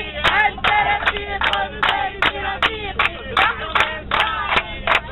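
A group of passengers clapping in time, about three claps a second, while singing together, with the bus engine's steady low hum underneath.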